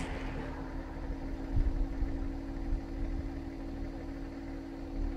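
A vehicle engine idling steadily, with wind gusts rumbling on the microphone for a second or two about midway.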